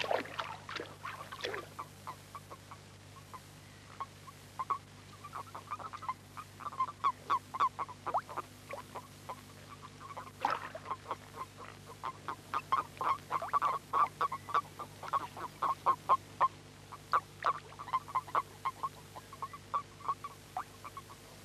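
Common toads in a spawning-pond breeding chorus: quick runs of short, soft croaks from several males, coming in bursts that overlap. A steady low electrical hum runs underneath.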